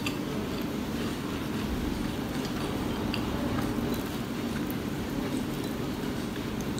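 Close-miked chewing of crispy onion pakoras, with a few faint crunches, over a steady low rumble.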